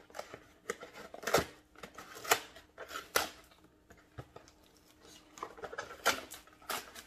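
Small cardboard parts box being torn open by hand: a series of irregular rips and crackles of cardboard.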